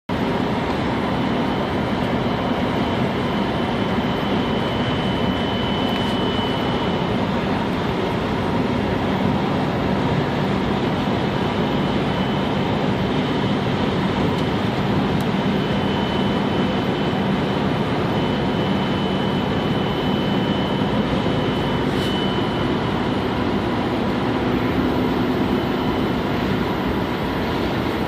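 Dodge Dakota 3.9 V6 engine running steadily, with a high, pure whine of about 3 kHz. The whine holds one pitch but swells and fades in strength. A classic bearing noise is suspected, most likely a Denso alternator bearing.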